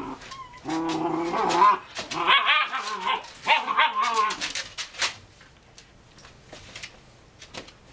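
Airedale puppies play-fighting: a run of high, wavering yips, whines and play-growls in the first half, then scattered sharp clicks and knocks for the last few seconds.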